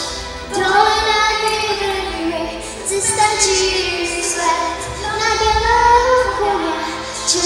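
A young girl singing into a handheld microphone, holding long notes that bend in pitch between phrases.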